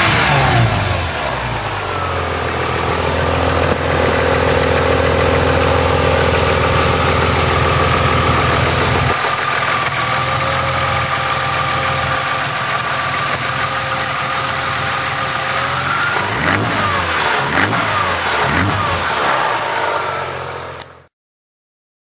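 BMW E36 M3 straight-six with a Supersprint racing exhaust (headers, non-resonated mid pipes, racing muffler). The revs fall back and the engine settles into a steady idle, gets a few short throttle blips near the end, and the sound then cuts off abruptly.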